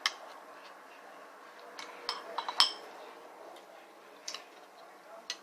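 Scattered sharp clinks and taps of tableware during a meal, a cluster around two seconds in, the loudest of them about two and a half seconds in with a brief ring.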